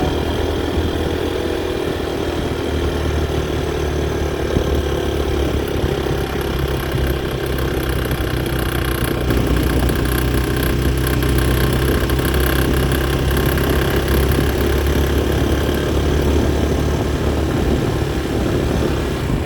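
Honda XRE 190's single-cylinder four-stroke engine running steadily, getting slightly louder about halfway through. The owner finds the noise it makes strange and unexplained.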